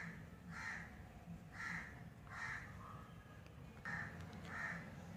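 A crow cawing faintly and repeatedly, about six short harsh caws coming roughly in pairs.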